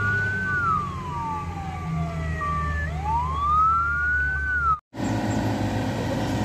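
A wailing siren rises and falls twice over the low steady running of a heavy truck's engine as it climbs a steep dirt slope. The sound cuts off abruptly just before five seconds in, and a different vehicle engine sound follows.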